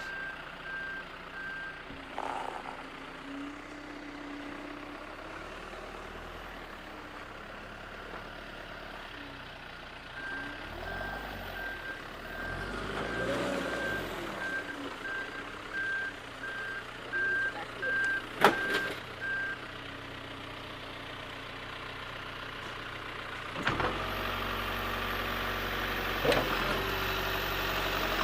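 Backhoe's back-up alarm beeping at about two beeps a second over its running engine; the beeping stops about two seconds in and starts again about ten seconds in for roughly ten seconds. A single sharp knock comes near the end of the beeping, and the engine grows louder a few seconds before the end.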